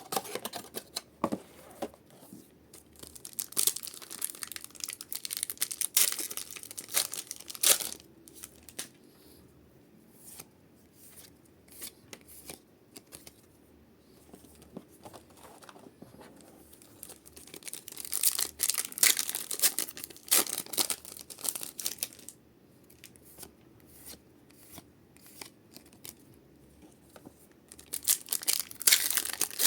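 Pokémon card booster pack wrappers being torn open and crinkled by hand, in three bouts of crackly tearing (a few seconds in, about two-thirds of the way through, and near the end), with quieter handling between.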